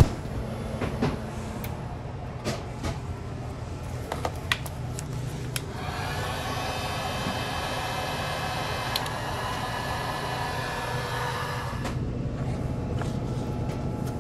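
Handheld heat gun blowing steadily for about six seconds, starting about halfway through, to melt ice off the freezer's frosted suction line. Before it come scattered clicks and crackles of insulation tape being pulled off the pipe, over a steady low hum.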